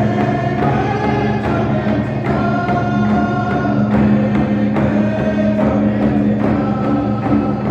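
Indigenous drum group's song: several voices singing together, holding and bending long notes over a steady drumbeat.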